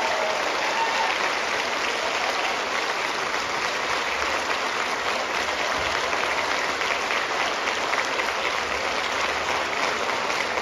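Audience applauding steadily: dense, even clapping from a full house.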